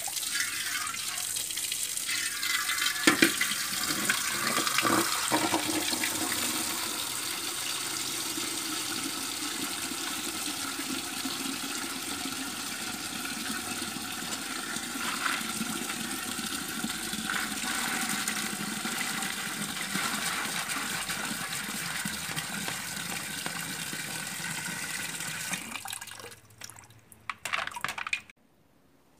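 Tap water running in a steady stream into an aluminium pot. It stops a few seconds before the end, followed by a few light knocks of the pot and the plastic colander.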